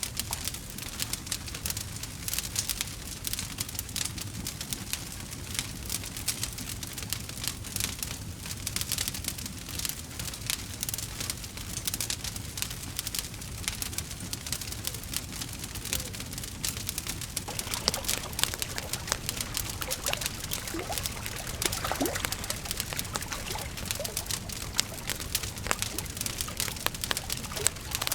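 Wood fire crackling steadily with dense, rapid pops and snaps over a low rumble. A few brief thin whistles rise and fall about two-thirds of the way through.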